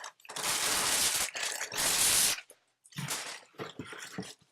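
Cardboard packaging of a Blue Yeti microphone being opened: two long scraping, tearing noises of about a second each, then a few short rustles and knocks.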